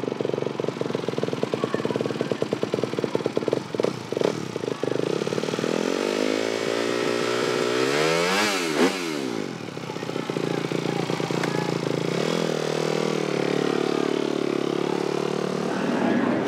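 A Honda motocross bike's engine running with a rapid, uneven popping idle. About eight seconds in, its pitch swings sharply up and back down, then settles into a steadier run.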